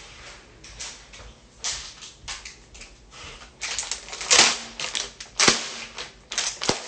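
A crumpled plastic bag crinkling and rustling as it is handled, in irregular crackles that grow louder from about four seconds in.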